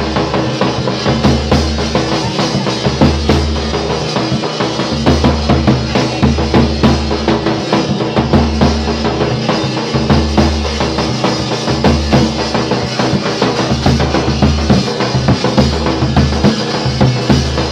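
A large rope-tensioned dhol drum is beaten with a stick in a fast, steady, loud dance rhythm, with deep booming bass strokes among sharper slaps.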